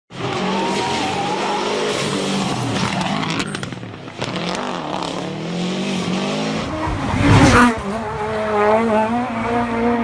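Rally car engine at hard throttle, its pitch rising and falling with the revs and gear changes, over tyre and road noise. It swells to its loudest about seven seconds in, then holds a steadier note.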